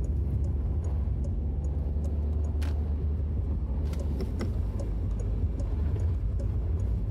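Steady low rumble of a Peugeot 308's 1.6 HDi four-cylinder turbodiesel and its winter tyres on the road, heard from inside the cabin while driving, with faint light clicks scattered through it.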